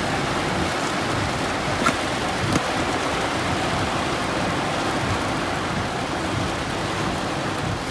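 Heavy rain beating on a car's windshield and roof, heard from inside the car as a steady, dense rush.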